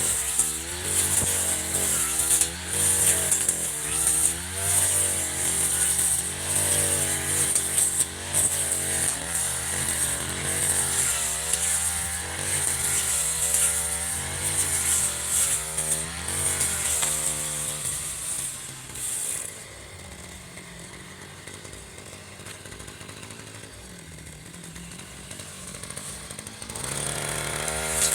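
Echo RM-435 two-stroke brush cutter engine revving up and down over and over, then dropping back to a quieter idle for several seconds before revving again near the end.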